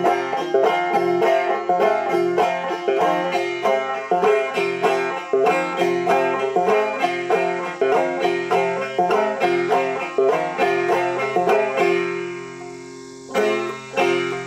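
Five-string banjo played clawhammer style with a rhythmic two-stroke up-and-down brush across the strings. The playing trails off near the end, with a couple of last single strums.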